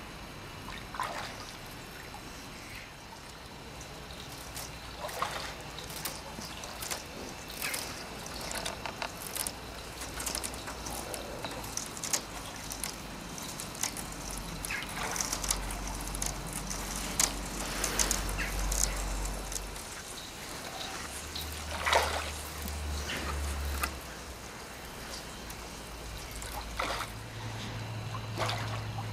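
Eurasian otters swimming and diving at a lake's surface: water sloshing and trickling, broken by many small splashes and drips.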